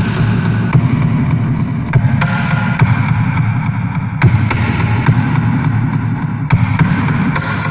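Live experimental electronic music, loud: a dense, noisy low drone broken by irregular sharp clicks and glitches.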